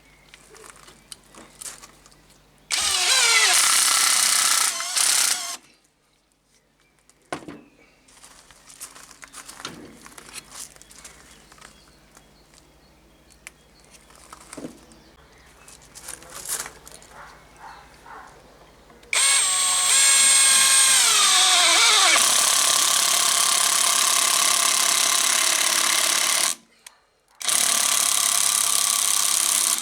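Cordless brushless impact wrench (Ingco 20V) running in three bursts: a short one of about three seconds, a long one of about seven seconds, and another near the end, its motor pitch rising as each burst starts. The bursts come as it drives a self-tapping screw into solid, undrilled mahogany and backs it out. Light knocks and handling sounds fall between the bursts.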